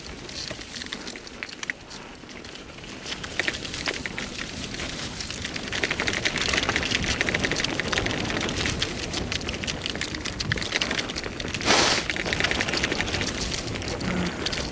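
Bicycle tyres rolling fast over a dirt and gravel trail on a descent, a steady crackling crunch that builds as the bike picks up speed, with one louder rush about three-quarters through.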